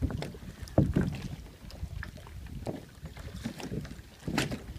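A plastic kayak bumping and scraping against a wooden dock as a child climbs into it: a few irregular knocks, the strongest about a second in and near the end, over a low wind rumble on the microphone.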